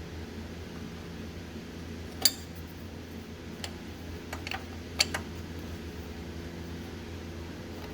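A few sharp metal clinks of a wrench working on a new starter's mounting bolts, the two loudest about two and five seconds in, over a steady low hum.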